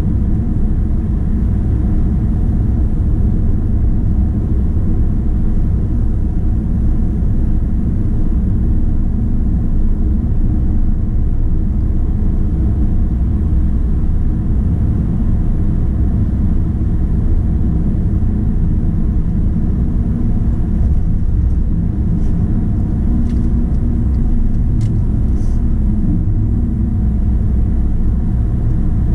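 Car driving at highway speed, heard from inside the cabin: a steady low rumble of tyre and engine noise, with a few faint ticks about three-quarters of the way through.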